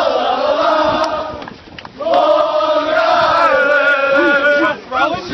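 Crowd of hockey fans chanting loudly in unison. The chant breaks off for a moment about a second and a half in, then starts again.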